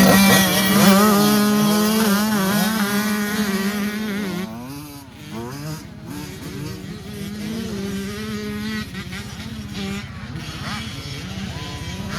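Racing Mini engines revving hard, several engines at once with pitches rising and falling. One engine holds steady at high revs for the first few seconds, then the overall sound drops back about four seconds in.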